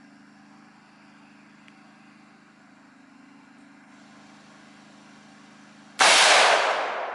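A single AR-15 rifle shot about six seconds in, a sharp crack followed by a long echoing decay, over a steady low hum.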